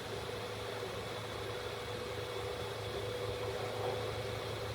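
Steady low hum with a faint held tone above it, unchanging throughout: background machinery or electrical hum.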